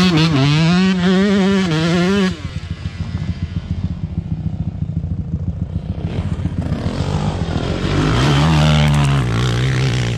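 Dirt bike engine revving hard close by, its pitch rising and falling for about two seconds, then dropping to a quieter, lower running. Near the end it revs up again.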